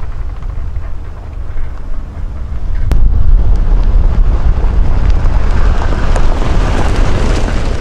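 Wind rumbling on the microphone. About three seconds in, after a sharp click, comes the noise of a slow line of cars and motorhomes driving past on a dirt road, engines and tyres growing louder toward the end.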